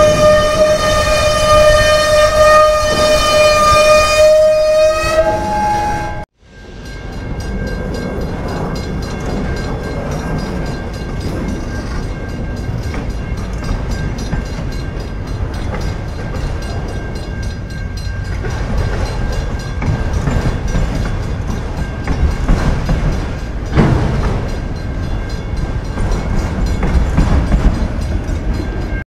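CN locomotive 5707's horn, an EMD SD75I's, sounds as one steady sour note for about five seconds and jumps briefly higher just before it stops. It sounds really fouled. After a sudden break, autorack freight cars roll past with a steady wheel rumble and a thin high squeal, and one knock comes about two-thirds of the way through.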